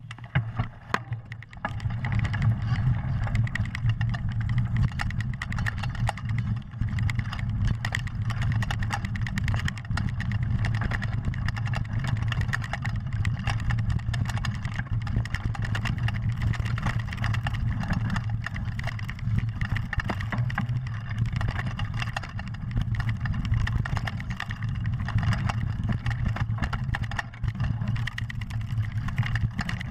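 Mountain bike descending a fast dirt trail, heard from a camera riding along: wind rumbling over the microphone, tyres rolling over dirt and frequent rattles and knocks from the bike over bumps. Quieter for the first second or so, then loud and steady once the bike is moving.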